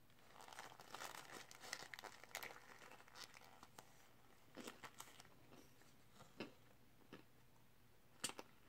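Paper burger wrapper crinkling and rustling for about three seconds as a burger is handled in it, faint. Then scattered soft mouth clicks of chewing and finger-licking.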